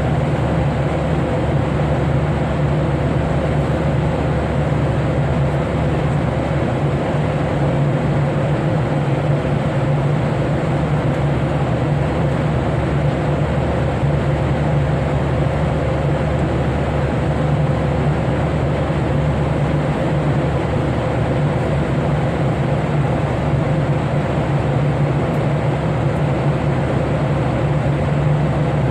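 Airliner cabin noise in flight: a steady, loud rush of engine and airflow drone with a low hum, unchanging throughout.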